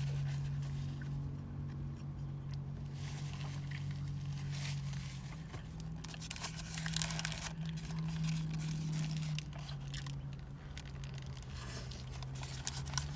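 Close-up eating sounds: chewing and crunching fast food, with paper wrappers crinkling, over a steady low hum.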